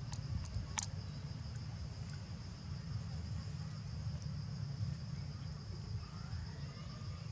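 Outdoor ambience: a steady high-pitched insect drone over a low rumble. There are two sharp clicks in the first second and a faint rising squeak near the end.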